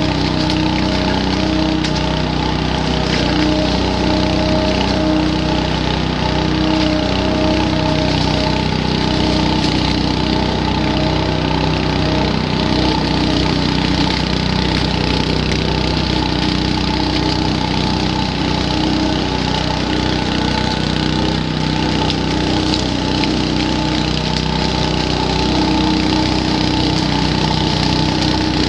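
Petrol-engined leaf vacuum running steadily, its small engine holding an even pitch under the rush of air through the machine.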